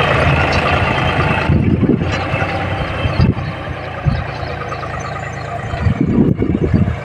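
John Deere 5050D tractor's three-cylinder diesel engine running steadily in low gear while it pulls a seed drill, with a few knocks and rattles from the drill and hitch. The engine is loudest at first and eases slightly after about a second and a half.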